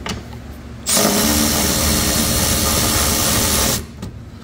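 A cordless power tool spins a 3/8-inch socket on a long extension, backing out a mower belt-cover screw. It runs steadily for about three seconds, starting about a second in and cutting off suddenly near the end.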